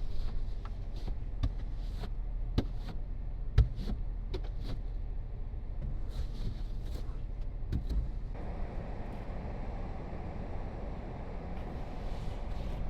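A car's engine running steadily, with scattered clicks and knocks, one louder knock a few seconds in. About eight seconds in, a steady rushing noise starts up.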